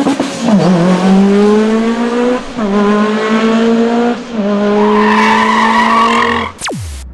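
Racing car engine accelerating hard through the gears: its pitch climbs steadily, then drops at each of about three upshifts. A quick downward swoosh comes near the end.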